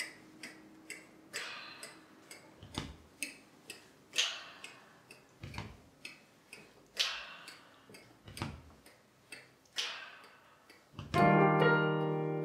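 A sparse rhythmic groove of short clicks, with low thumps and sharper hits alternating about every 1.4 s, from a cappella percussion. About 11 seconds in, the vocal group enters with a loud, sustained chord.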